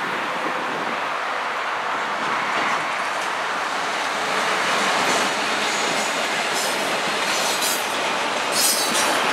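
A CN double-stack intermodal freight train passing close by. The diesel locomotives run past, then the loaded container well cars roll by. Short high wheel squeals come near the end.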